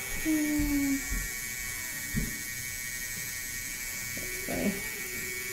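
Scalp micropigmentation pen, a small electric tattoo machine, buzzing steadily as its needle works into the scalp. A short low hum, like a voice, sounds in the first second.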